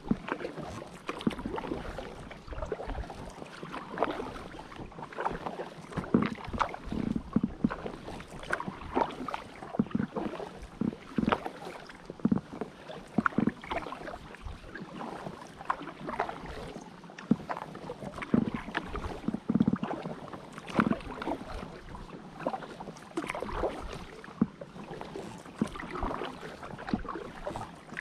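Paddling an Itiwit X100+ drop-stitch inflatable kayak: the paddle blades dip and splash, and water laps against the hull in frequent irregular small splashes, over a low wind rumble on the microphone.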